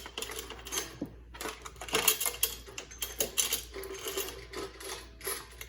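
Loose bicycle roller chain clinking and rattling, its metal links knocking together in many quick, irregular clicks as the chain is pulled off the bike.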